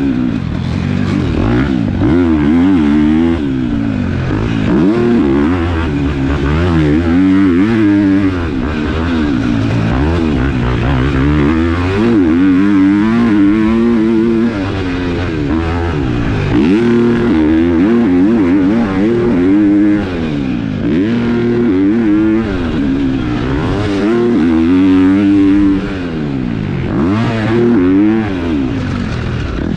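KTM four-stroke motocross bike's single-cylinder engine, fitted with a new aftermarket exhaust, being ridden hard: the engine revs up and drops back over and over, its pitch climbing and falling every couple of seconds.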